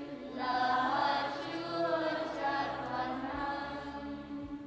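Several voices singing together in slow, long held notes, in the manner of a sacred chant. The singing swells about half a second in and eases off near the end.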